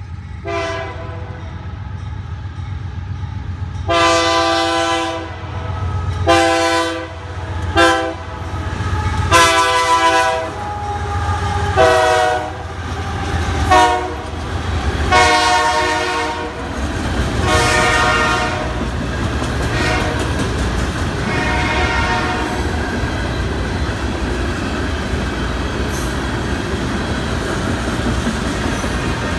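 Canadian Pacific diesel freight locomotive sounding its horn for a grade crossing in a series of long and short blasts over the low rumble of its engine. The horn stops about two-thirds of the way through, leaving the steady rumble and clatter of refrigerated freight cars rolling past.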